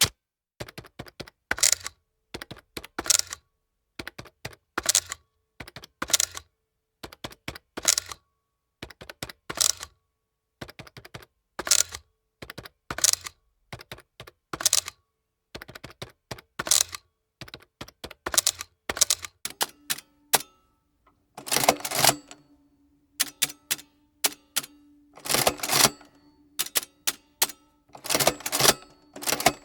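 Adding machine being operated: short clusters of sharp mechanical clicks from its keys and mechanism about every second and a half. About two-thirds of the way in a steady low motor hum starts, and three louder, longer clattering cycles of the mechanism follow.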